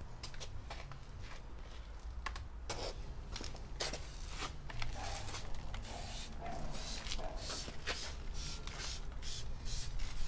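Repeated short rustling and scraping strokes of hand detailing work on a car's bodywork, irregular and coming faster in the second half, over a steady low rumble.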